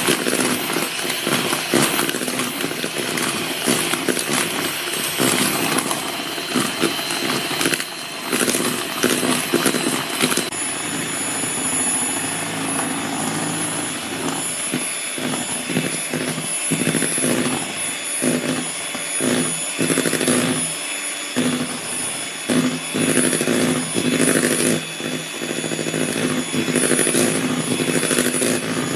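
Electric hand mixer running continuously, its wire beaters whipping egg whites and sugar in a plastic bowl as flour is added. The motor's whine changes pitch about ten seconds in.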